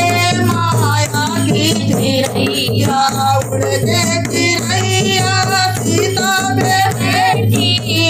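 Woman singing a Hindi folk-style Krishna bhajan with dholak drum accompaniment, the drum strokes keeping a steady beat under the melody.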